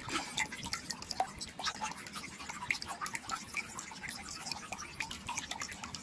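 A thin trickle of water running down a rock face, splashing and dripping in many quick, irregular plinks.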